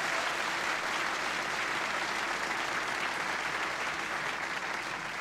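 Studio audience applauding: a steady wash of clapping that eases off slightly toward the end.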